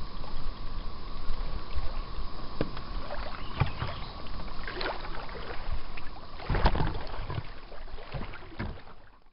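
Aluminum canoe moving along a shoreline, with irregular water splashes and knocks against the metal hull. Under them are low wind rumble on the microphone and a faint steady whine. It all fades out at the end.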